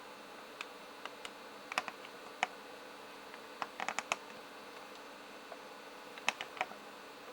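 Scattered light clicks from an iBook G3 laptop's keyboard and trackpad button being worked: single clicks, a quick run of about four near the middle and another of three about six seconds in, over a faint steady hum.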